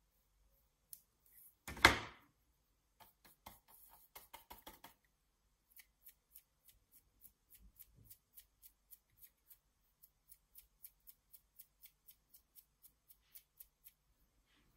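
Stiff paintbrush loaded with white gouache being flicked with a finger to splatter snow onto the paper: a run of short ticks, about three a second, after a single louder knock about two seconds in.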